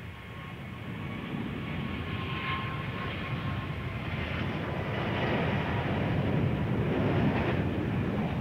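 Boeing 777 airliner's twin jet engines passing low during the landing flare, a steady rumble growing louder as the aircraft nears, with a faint high whine on top.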